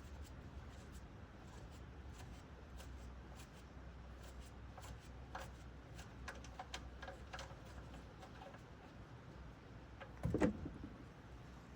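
Faint scattered light clicks and rubbing from hands handling tools or parts, with one louder knock about ten seconds in.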